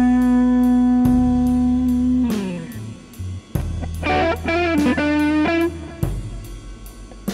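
Electric guitar music: a long held note that slides down about two seconds in, then a quick run of notes, over a bass line and a steady beat.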